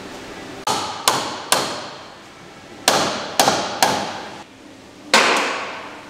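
A ball-peen hammer striking steel seven times, in two quick sets of three and then a single blow, each hit ringing briefly: knocking a bolt through the shackle and eye of a new rear leaf spring on a Land Rover Defender 110.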